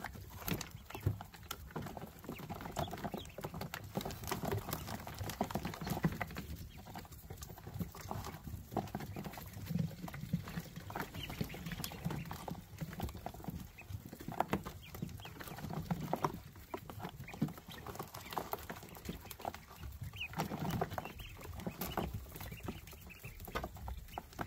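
A brood of ducklings scrambling and pattering over a plastic brooder ledge and bedding, giving many small taps and scratches, with soft peeping now and then.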